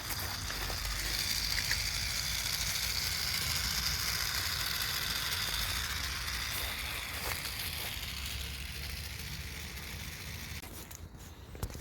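Small Meccano-built motorised vehicle running, its two small electric motors and differential-style gearbox giving a steady whirring hiss that fades near the end.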